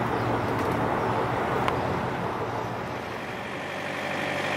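Steady engine hum of a diesel truck idling, mixed with general outdoor noise; a single sharp click about a second and a half in, and a thin steady whine comes in near the end.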